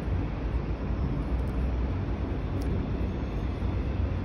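Steady low background rumble with a light hiss, like distant traffic or machinery, with no distinct events.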